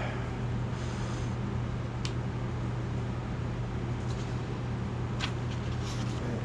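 Steady low hum with a hiss of moving air from a fan, and a few light clicks as papers and a pen are handled.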